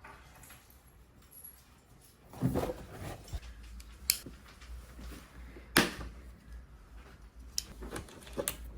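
Handling of a Milwaukee Packout socket set and its plastic case: faint rustling with a few scattered clicks, and one sharp knock a little before six seconds in.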